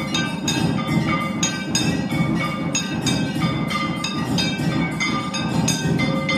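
Hindu temple devotional music: ringing metal bells and cymbals struck in a steady rhythm, a few strikes a second, over a dense lower layer of drumming and voices.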